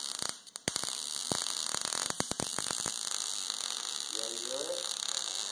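MIG (wire-feed) welder arc running steadily, a crackling hiss studded with irregular sharp pops as the weld bead is laid. The arc drops out briefly about half a second in and strikes again.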